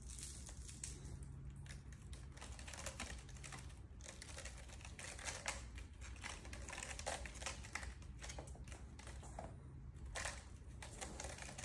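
Kittens' claws scratching and catching on the sisal rope of a tall scratching post as they climb it: a continuous run of irregular, soft, scratchy clicks.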